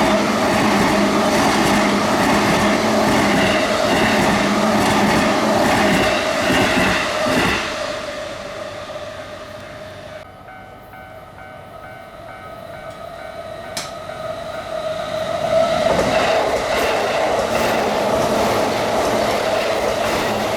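Trains passing at a level crossing, wheels clattering on the rails. The noise is loud for the first seven seconds or so, fades to a quieter lull, and rises loud again about sixteen seconds in.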